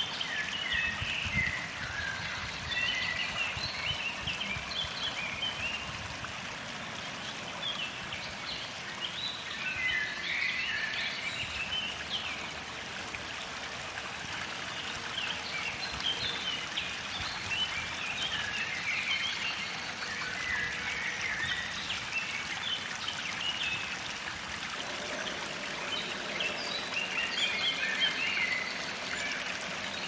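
Songbirds singing in short bursts of quick chirps and whistled phrases that come and go, over a steady rushing background noise.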